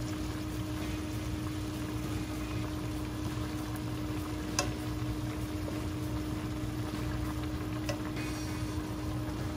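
Fish curry gravy simmering in a frying pan, a steady bubbling hiss with a constant low hum underneath, while a wooden spatula stirs it; one sharp knock near the middle.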